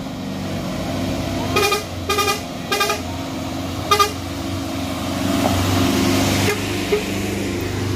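A truck's diesel engine running at low speed, with a horn tooting four short times in the first half. Later a brief hiss rises and cuts off abruptly.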